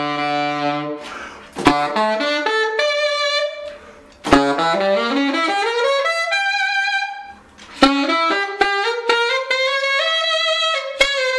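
Saxophone with a metal ring ligature played solo: phrases of quick runs climbing and falling, with crisp attacks on the notes. The phrases break for short breaths about a second in, near four seconds and a little past seven seconds.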